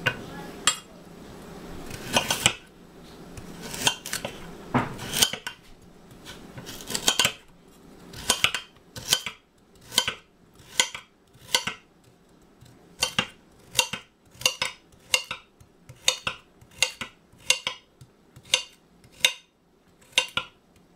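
Chef's knife chopping carrots on a cutting board: a few separate chops at first, then a steady rhythm of about two chops a second from about eight seconds in.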